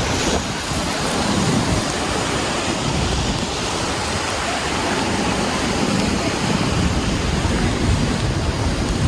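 Steady rushing noise of wind buffeting the microphone, with a low rumble and no distinct events.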